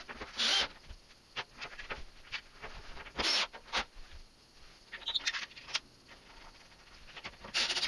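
A few short, sharp scrapes, about half a second in, around three seconds in and near the end, with light clicks and taps between, as wooden parts and tools are handled during the repair.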